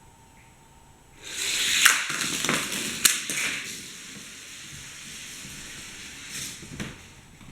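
Die-cast Hot Wheels car running down plastic gravity track: a loud rolling rattle starts about a second in, with sharp clacks at about two and three seconds, then settles into softer steady rolling and ends in a couple of clicks near the end.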